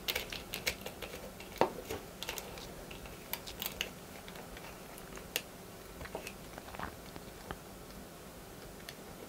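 Small clicks and taps of metal and plastic parts as a GCSS MPP replica flash clamp is put back together around a 3D-printed switch holder. The clicks come thick at first, then thin out to a few scattered ones.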